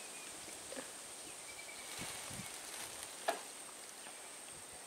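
Light knocks from the loose wooden planks of a rickety footbridge under footsteps, one sharper knock a little past three seconds in, over a steady faint high hiss of outdoor ambience.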